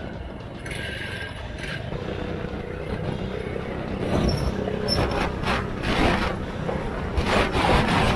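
Baja minibike's small four-stroke engine running, getting louder and rougher from about four seconds in as it is revved up for a speed run.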